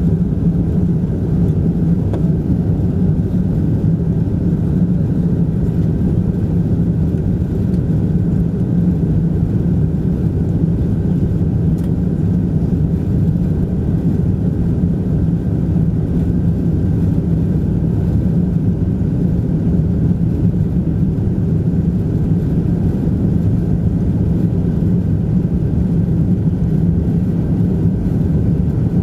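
Cabin noise of a Boeing 747-200 climbing out after takeoff: a steady low rumble of the jet engines and rushing air, heard from a seat beside the wing.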